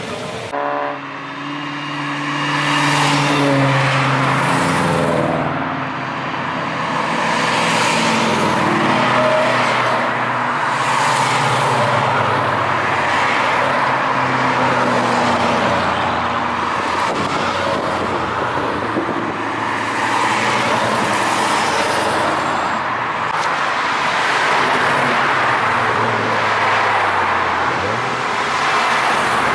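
A car engine accelerating hard, its note rising in pitch over the first few seconds, then a line of cars driving past one after another, a steady mix of engine and tyre noise that swells as each one goes by.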